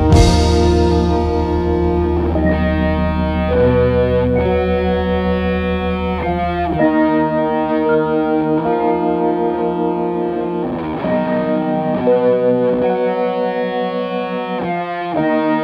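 Background music with guitar, chords changing every second or two; the low bass drops out about seven seconds in.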